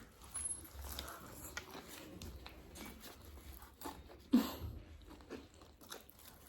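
Quiet chewing and small crunches of KFC fried chicken close to the microphone, with one short, louder sound about four seconds in.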